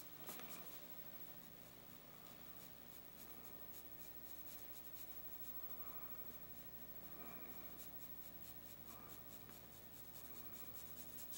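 Pencil scratching on paper in many quick, short strokes, faint: hand shading of a pencil drawing.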